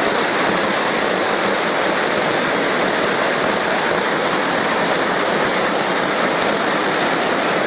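A large crowd applauding steadily and densely.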